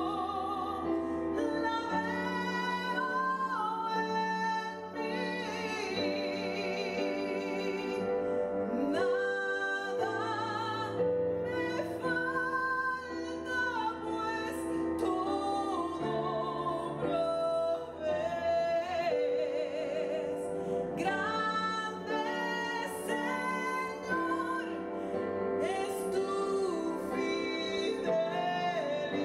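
A woman singing a worship song with wide vibrato over instrumental accompaniment.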